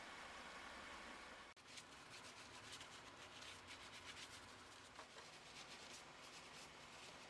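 Faint scrubbing: a run of short rubbing strokes on the motorcycle as it is cleaned, starting after a sudden break about a second and a half in.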